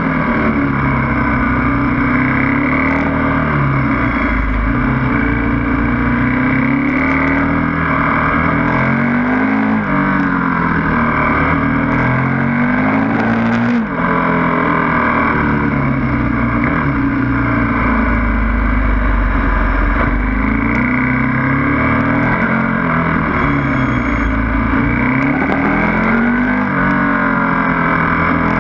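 KTM 1290 Super Duke's V-twin engine revving up hard and falling back again and again as the bike accelerates out of bends and slows into them, over steady wind rush.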